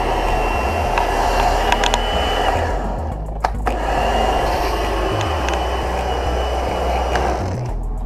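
Electric pressure washer running, its pump motor humming under the hiss of the jet hitting concrete. It cuts out briefly about three seconds in and again near the end, as the trigger is let go.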